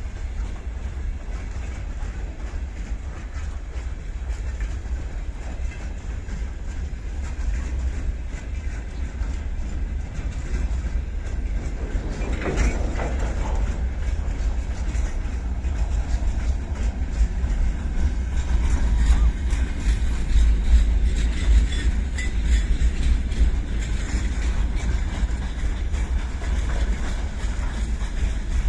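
Slow-moving freight train rolling past, wagon wheels clacking over the rail joints over a steady low rumble, with a brief louder burst of noise about twelve seconds in and the sound growing louder in the second half.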